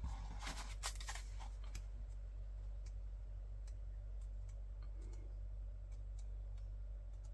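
Light clicks and ticks of cards and packaging being handled: several in quick succession in the first two seconds, then sparse single clicks, over a steady low hum.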